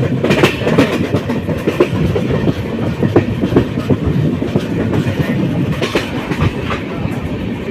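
Express passenger train running at speed, heard from a coach window: a steady low rumble of wheels on rail, broken by irregular clicks and knocks over rail joints.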